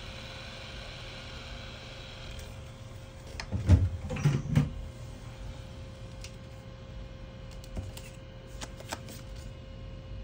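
Heat gun blowing hot air over the Pixel 3's back glass to soften its adhesive, a steady whine that cuts off about two and a half seconds in. About a second later comes a short cluster of loud knocks and clatter, then a few light clicks and taps.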